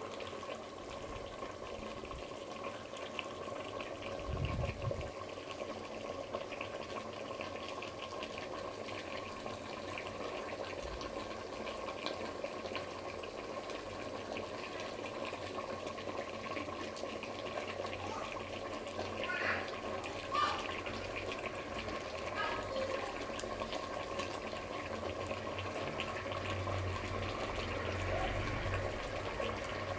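Steady watery noise with a constant faint hum, and a few small knocks about twenty seconds in.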